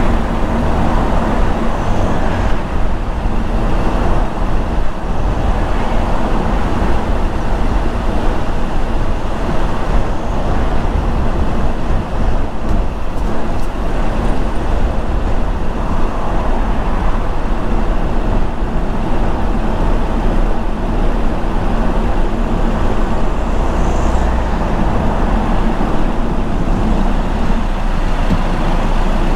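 Steady road noise of a moving car: tyres on the road surface and a low engine hum.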